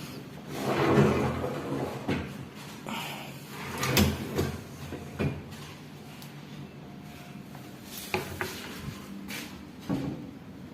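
Modular kitchen cabinet drawers and doors being opened and shut: a sliding run followed by a sharp knock, then a few lighter clicks and knocks near the end.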